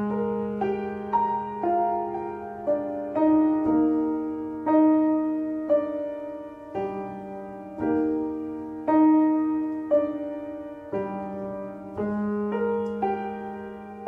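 Slow, gentle piano music, with single notes and chords struck about once a second and left to ring.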